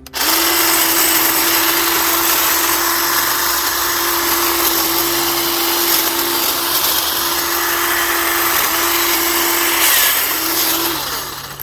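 Battery-powered DeWalt hedge trimmer running steadily as it cuts into wild rose brush. It starts abruptly, its hum dips briefly a few times as the blades meet stems, and it winds down near the end.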